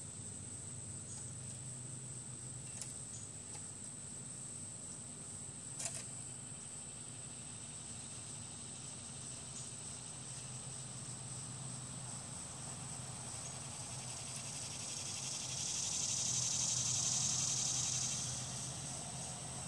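Outdoor background with a constant high, thin insect-like drone over a low hum, one sharp click about six seconds in, and a hiss that swells and fades near the end.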